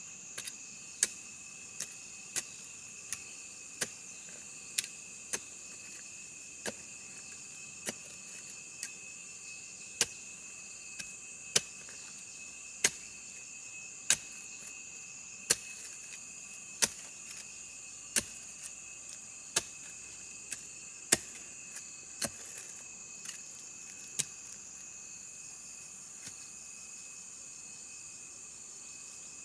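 Steady chirring of crickets, with a series of sharp knocks about once a second that stop near the end.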